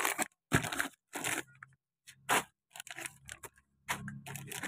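Plastic retail sachets rustling and crinkling in several short, irregular bursts as a hand shifts them about inside a cardboard box.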